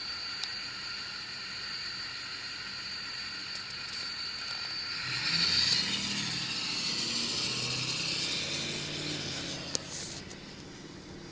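Ford Power Stroke turbo-diesel pickup on the road with a steady high-pitched turbo whistle. About five seconds in, the engine and turbo grow louder and then ease off again near the end.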